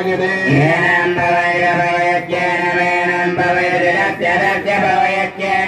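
Hindu ritual mantras chanted in Sanskrit, a continuous sing-song recitation with long held notes over a steady low drone.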